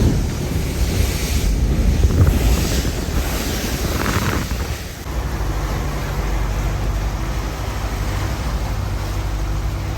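Fairline GT45 motor cruiser under way at sea: wind buffeting the microphone over the rush of water for the first half. About halfway through it gives way to a steady low engine drone.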